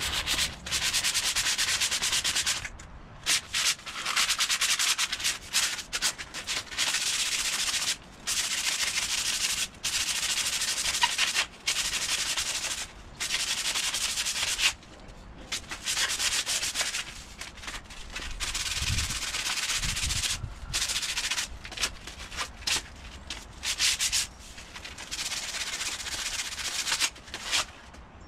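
Hand-held sandpaper rubbing along a hickory axe handle in uneven runs of strokes with short pauses, sanding off the handle's lacquered finish.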